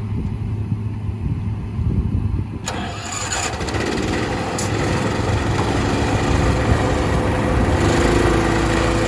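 New Holland combine's diesel engine starting about three seconds in and building up to a steady run, tested after a welded repair to the cracked frame around the rear spinner.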